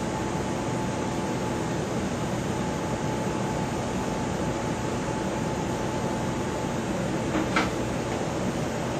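Steady rushing mechanical noise, like a fan or air handling, with a faint steady high hum that fades out about six seconds in. A short knock comes about seven and a half seconds in.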